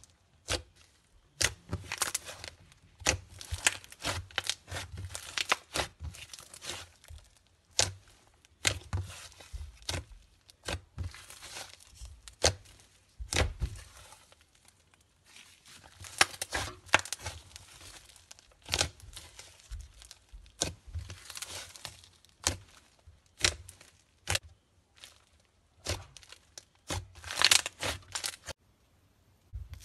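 Hands squeezing and kneading thick slime, at first pressed through clear plastic wrap. It gives irregular clusters of sticky crackles and pops with short quiet gaps between them.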